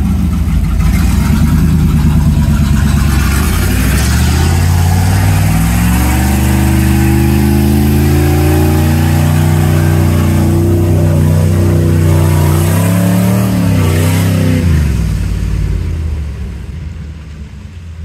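Chevrolet C/K1500 pickup's engine revved hard as it drives through a muddy creek, the front tyre churning water and mud. The revs climb over a couple of seconds, hold high, then drop sharply near the end and the sound falls away.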